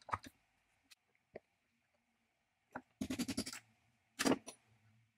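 Small metal parts of an antique Cutawl rotary jigsaw head being handled on a workbench: a few light clicks, a quick clattering rattle about three seconds in, and a sharper metal knock just after four seconds.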